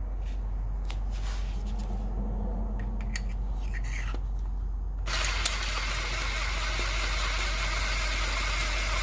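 A few light clicks of tool handling, then about five seconds in a steady motor-driven machine noise starts suddenly and keeps running, with a faint high whine.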